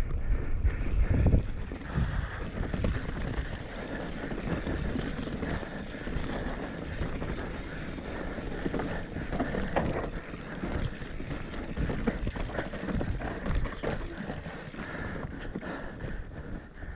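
Mountain bike descending a dry dirt trail: tyres running over dirt and the bike rattling over bumps, with wind rushing on the microphone.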